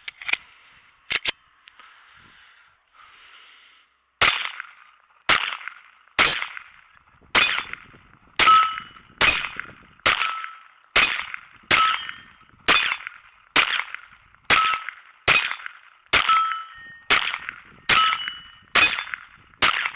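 Glock 44 .22 LR pistol fired steadily, about eighteen shots at roughly one a second, each crack followed by a brief metallic ring. Before the string there are a few light clicks of handling. It is a magazine being emptied after a feeding hiccup was cleared.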